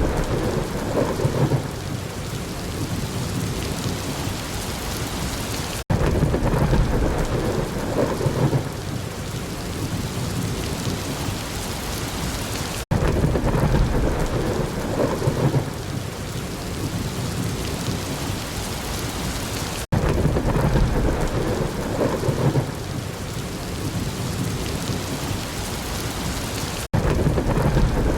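Heavy rain falling steadily, with a low roll of thunder about every seven seconds. The same short stretch of storm recording repeats, with a brief dropout at each seam before the next rumble.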